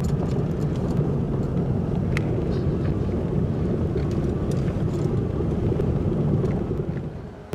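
A car rolling slowly over cobblestones, heard from inside the cabin: a steady low rumble of tyres on the stones, with faint scattered ticks. The rumble eases off near the end.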